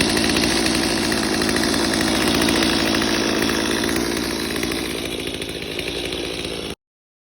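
Stihl MS 250 two-stroke chainsaw running at high speed with a full chisel chain, ripping through red oak on an Alaskan mill. The sound eases a little over the last couple of seconds, then cuts off abruptly near the end.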